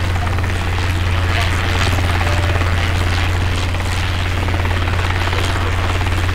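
Steady low drone and hiss of jet engines heard from inside an airliner cabin in flight.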